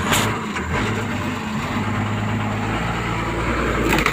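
Bulldozer's diesel engine running with a steady low drone, its pitch shifting slightly about a second in and again near three seconds.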